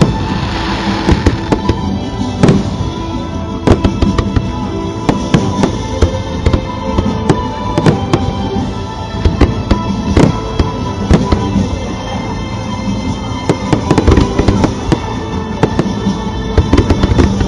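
Aerial fireworks bursting in a rapid, continuous string of loud bangs, with music playing steadily underneath.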